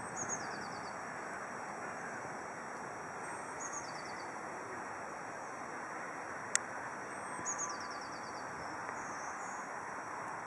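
A songbird repeating the same short song three times, about every three and a half seconds: a high note, then a quick falling run of notes, over a steady outdoor background hiss. A single sharp click a little past the middle.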